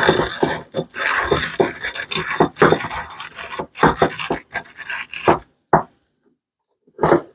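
Hand-cranked coffee grinder crushing coffee as its crank is turned: a rasping, crunching grind in uneven strokes. It stops about five and a half seconds in, followed by two short scrapes.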